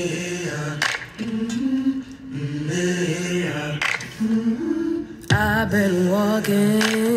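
A song played through a Bose SoundLink Micro Bluetooth speaker: a wordless vocal passage of held, sung notes. About five seconds in, a louder voice with vibrato comes in.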